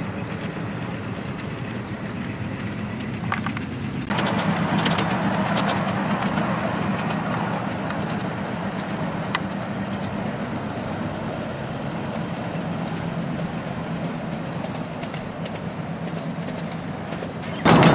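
Engine of a ride-on miniature locomotive running steadily as it hauls its carriages along the track. It gets louder about four seconds in, then slowly fades as the train moves away, with a few light clicks.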